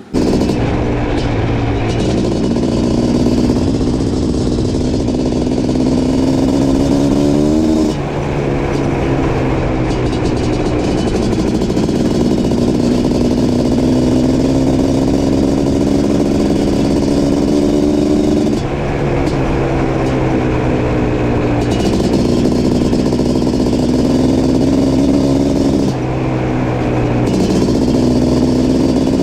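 Suzuki LT500R's 500cc liquid-cooled single-cylinder two-stroke engine running hard through an FMF exhaust. The engine note climbs slowly and steadily, then drops sharply, three times.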